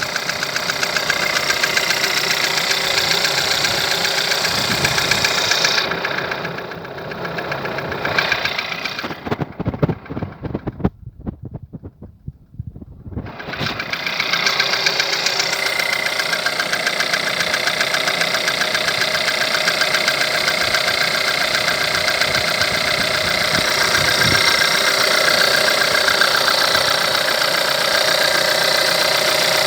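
A 1.4 TSI petrol engine running at idle with a rapid knocking from the engine, despite a recently replaced timing chain. About ten seconds in, the sound briefly falls away to a few uneven thumps, then the steady running returns.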